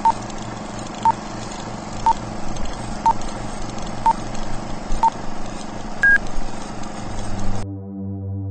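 Vintage film-leader countdown sound effect: a steady projector-like rattle and hiss with a short beep each second, six beeps at one pitch and a higher final beep about six seconds in. The hiss cuts off suddenly near the end and a low hum begins.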